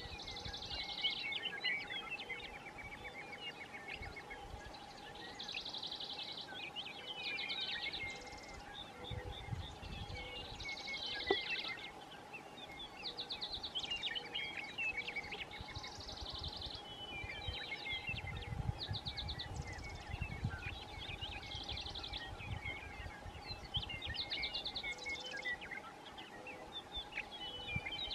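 Songbirds singing over and over, with fast buzzy trills and scattered chirps, above a steady faint hum. Bursts of low rumble come through a few times, and there is one sharp click about a third of the way in.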